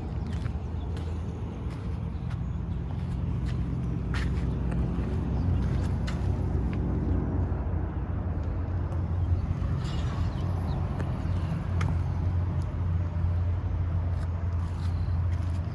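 2012 Ford F-150 pickup's engine running steadily, with a few scattered sharp clicks. The high-mileage engine (295,570 miles) is offered as having an engine knock.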